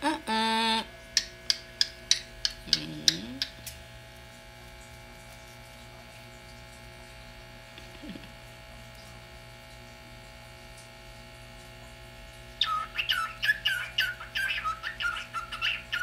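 Cockatiels calling: a run of short, sharp chirps in the first few seconds, then a lull. About twelve seconds in, a cockatiel breaks into fast warbling chatter of quick high notes that carries on to the end.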